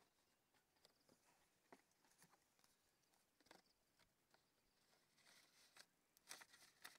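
Faint rustling and crinkling of the white paper sheets of a delta insect trap being handled and folded, with scattered soft clicks and a denser flurry of crinkles near the end.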